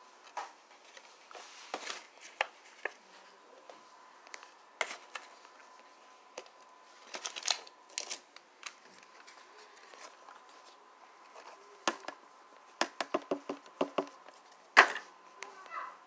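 Scattered clicks, taps and light rustles of hands topping mini pizzas on a tray, pressing shredded cheese onto the crusts, with a quick run of taps shortly before the loudest knock near the end. A faint steady high hum sits underneath.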